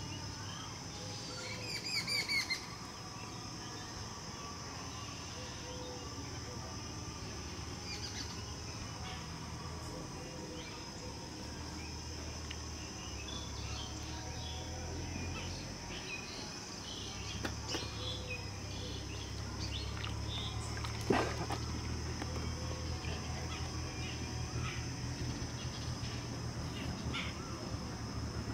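Outdoor ambience of birds chirping off and on, with a short run of bird calls about two seconds in, over a steady high-pitched hum and a low rumble.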